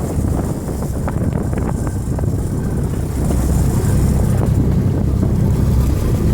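Boat engine running under wind buffeting the microphone, a steady low rumble that grows louder about three seconds in, with a few faint clicks early on.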